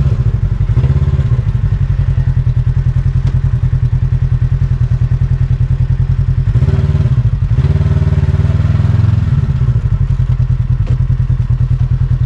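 Polaris RZR 1000 four-seat side-by-side's parallel-twin engine running as it drives along a dirt trail, its note shifting about halfway through, with a few knocks and clatter from the vehicle.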